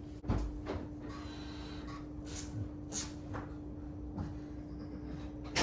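Faint handling noises, a few soft knocks and rustles, over a steady faint hum.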